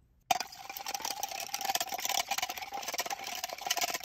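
A fork beating egg and sugar in a plastic measuring jug: a fast run of clicking strokes against the jug's sides, starting suddenly about a third of a second in, with a faint steady tone underneath.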